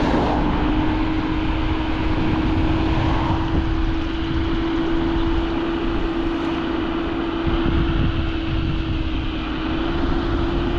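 Teverun Fighter Supreme Ultra electric scooter's motor whining at riding speed, a steady tone edging slightly higher, over wind rumble on the microphone.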